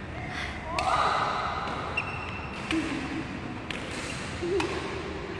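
Badminton rackets hitting a shuttlecock back and forth in a rally, sharp hits roughly once a second, with a few brief vocal sounds from the players.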